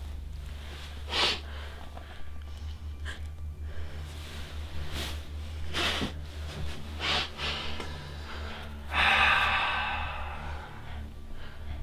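Sharp breaths in and out through the nose from a gagged, frightened person: a few short ones spaced a second or more apart, then a longer, louder muffled cry about nine seconds in. A steady low hum runs under them.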